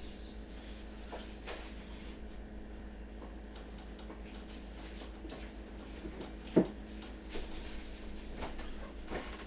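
Quiet room tone with a steady low hum and a few faint clicks, broken by one short, sharp knock about six and a half seconds in.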